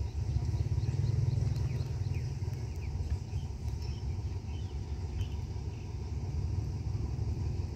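Steady low rumble of a diesel locomotive engine idling, with small birds chirping faintly over it.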